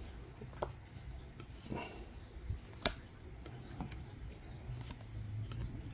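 Faint scattered clicks and taps of trading cards being handled and shifted in a stack, over a low steady hum.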